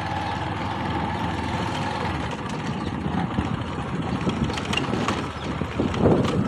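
Motorcycle engine running steadily while riding over a rough dirt track, with uneven low rumbling that grows louder near the end.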